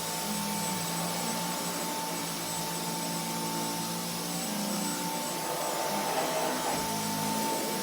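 Bagless vacuum cleaner running steadily: a constant motor whine over a rushing hiss of air.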